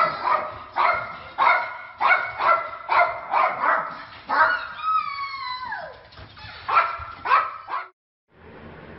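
Small fluffy dog barking rapidly and excitedly, about two to three barks a second, with one long falling whine around five seconds in; the barking cuts off abruptly near the end, leaving a steady faint hiss.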